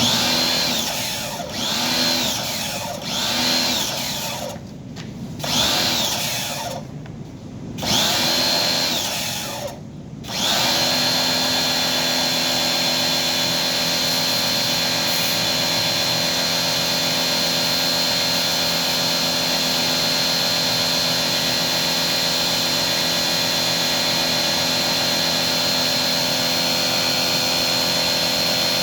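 Electric power-tool motor, first spinning in short bursts that rise and fall in pitch, then running steadily with a high whine from about ten seconds in.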